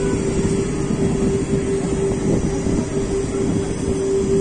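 Passenger train in motion: a steady rumble of coach wheels on the track, with a constant high hum over it.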